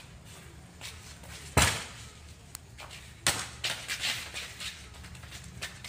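Two sharp knocks about a second and a half apart, followed by a few lighter clicks, over a low steady rumble.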